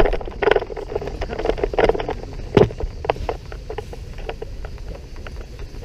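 Wind rumble on the camera microphone with a string of clicks and rustles from a tandem paraglider's harness and gear as it lands on grass; a louder knock comes about two and a half seconds in.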